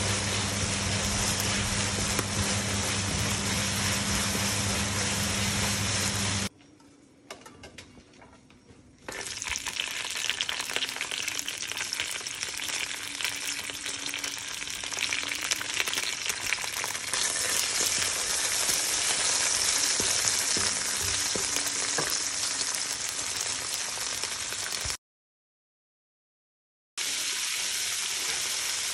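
Food sizzling in a hot nonstick frying pan as it is stirred: diced chicken turned with tongs, then snow peas, then shredded cabbage, with a steady crackling hiss. A low steady hum runs under the first six seconds. The sizzle drops away for a couple of seconds after that and cuts to silence for about two seconds near the end.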